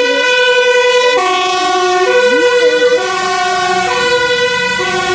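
Dutch fire engine's two-tone siren, stepping back and forth between a high and a low note, each held just under a second.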